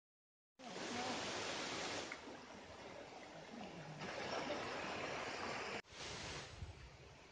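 A steady, even rushing noise of outdoor ambience, starting after a moment of silence and briefly broken about six seconds in.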